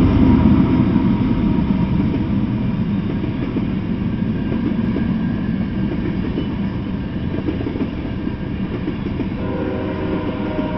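Freight train of tank cars rolling past: a steady rumble of wheels on the rails that eases slightly in loudness, with a faint steady tone joining near the end.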